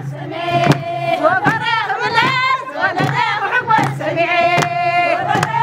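Women's voices singing together over a regular struck beat of about one stroke every three-quarters of a second.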